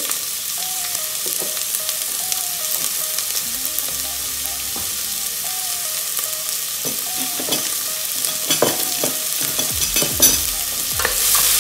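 Chopped onion and garlic sizzling in hot oil in a stainless steel pot, a steady frying hiss. A few sharp clicks come near the end, and the sizzle grows louder just at the close.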